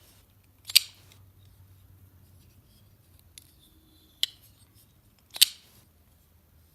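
Liong Mah Designs Endeavour folding knife being worked open and shut after reassembly: two loud, sharp snaps of the blade action, about a second in and again about five seconds in, with lighter clicks between.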